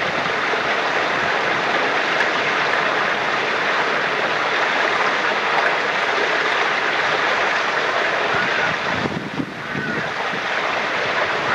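Spring water running steadily from the rock at a holy well, a continuous rush of flowing water. It dips briefly about nine seconds in, with a few faint high chirps near the end.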